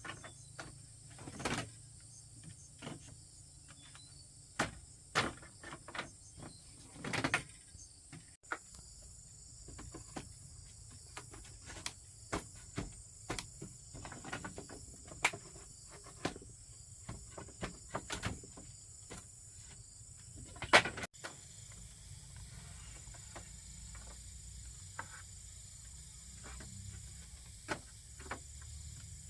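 Irregular sharp knocks and clicks, a few close together and some louder than others, over a steady high insect drone.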